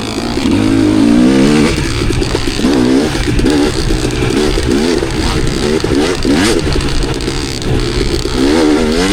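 Dirt bike engine on an enduro ride, revving up and falling back again and again as the throttle is worked, the pitch rising and dropping several times.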